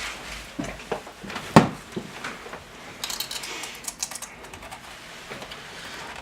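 Scattered clicks and knocks: one sharp knock about a second and a half in, then a quick run of small clicks, like typing, from about three to four seconds in.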